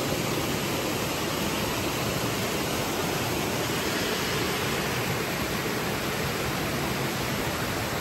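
Steady rush of a waterfall, an even wash of falling water with no change.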